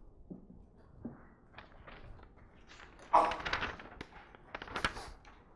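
Sheets of printed paper rustling as a handout is picked up and leafed through, loudest in two bursts about three seconds in and again near five seconds, with a few faint knocks before.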